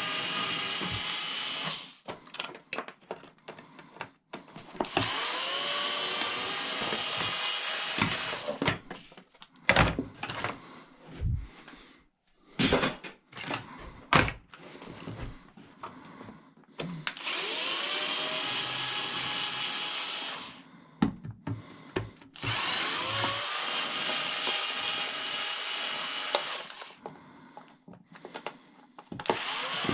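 Cordless power drill run in repeated bursts of a few seconds, each starting with a rising whine as the motor spins up and then running steadily. Short knocks and clatters of metal pieces being handled come in the pauses between runs.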